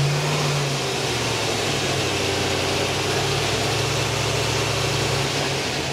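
Chevy Tahoe at highway speed, heard from inside the cabin: a steady engine drone under road and wind noise. No rear-end whine can be heard, the sign that the new differential pinion and carrier bearings have cured it.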